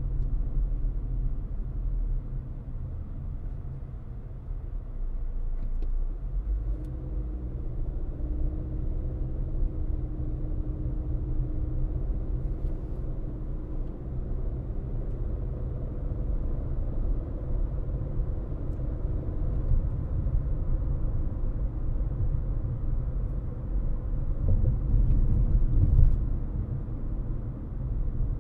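Steady low rumble of a car on the move, road and engine noise. A faint humming tone runs through the middle, and the sound grows briefly louder near the end.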